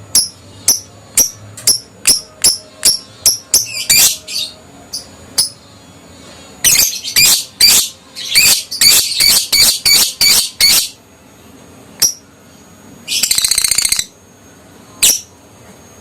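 Adult lovebird calling: a run of sharp, high chirps about two a second, a dense burst of harsh chirps in the middle, and near the end a rapid trill lasting about a second.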